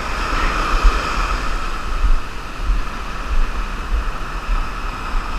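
Small surf breaking and washing up the beach, with wind buffeting the microphone.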